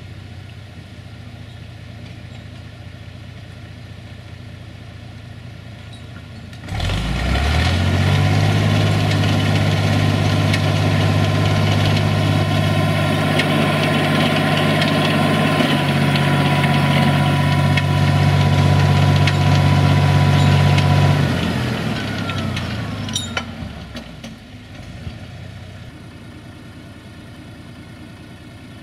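SAME Laser 110 tractor's diesel engine idling, then revved up sharply about seven seconds in and held at high revs for about fourteen seconds, with a steady whine on top, while its front-mounted forestry winch hauls in the cable. It then winds back down to idle.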